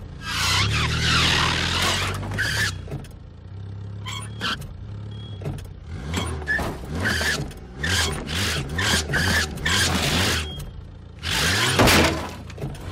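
Car engine revving again and again, with loud surges of tyre noise, as a car jerks a boat trailer back and forth.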